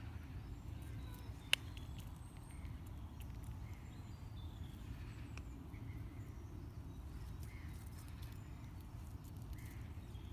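Outdoor ambience: a steady low rumble with faint bird chirps scattered through it, and a single sharp click about one and a half seconds in.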